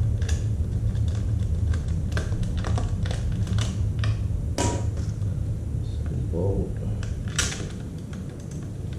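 Irregular clicks and taps of small screws and plastic fittings being worked by hand while fitting motorcycle turn signals, with a steady low hum underneath. The two sharpest clicks come a little past halfway and near the end.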